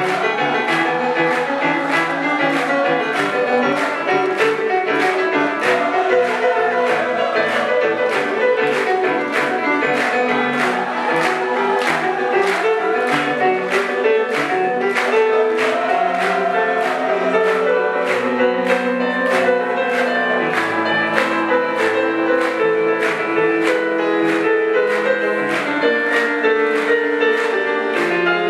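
A jazz-fusion band playing live: sustained chords and melody over a moving bass line, with a steady, even beat on the cymbals.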